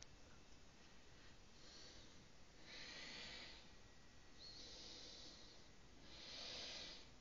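A person breathing close to the microphone: four soft breaths about every one and a half to two seconds, the last the loudest, over faint background hiss.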